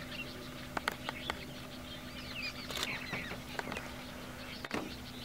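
Small birds chirping and calling in the background, with a few soft clicks and rustles and a sharper knock near the end, over a faint steady hum.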